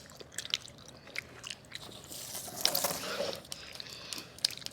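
Close-up chewing and biting of a juicy fruit, with small wet clicks and smacks from the mouth and a louder wet patch in the middle.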